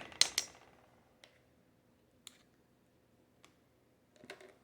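Faint, scattered clicks and light taps from hands handling dog food and its containers: a brief rustle at the start, three single clicks spaced about a second apart, and a short cluster of clicks near the end.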